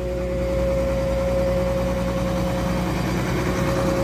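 Case IH 2688 rotary combine harvester running while harvesting black beans: a steady engine hum with a constant high whine over it, swelling slightly about half a second in and then holding even.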